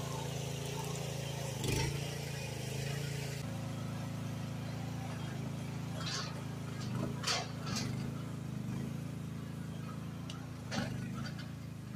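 Mini excavator engine running steadily as the machine tracks along towing a loaded dump trailer, with a few sharp clanks from the rig over rough ground.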